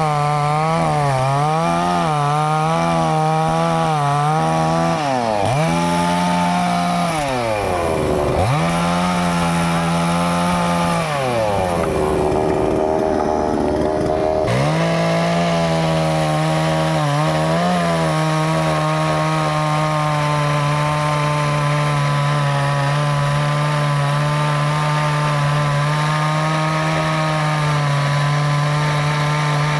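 Chainsaw running at high revs, its pitch wavering as it cuts, dropping away and coming back up several times in the first half, then held steady at full speed for the rest.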